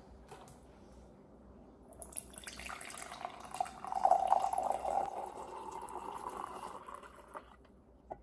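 Coffee poured from a stainless-steel jug into a ceramic mug: a steady pouring stream starting about two seconds in and stopping shortly before the end.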